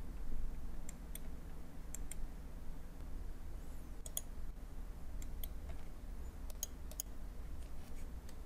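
Computer mouse clicking: a dozen or so short, sharp clicks at irregular intervals, over a faint steady low hum.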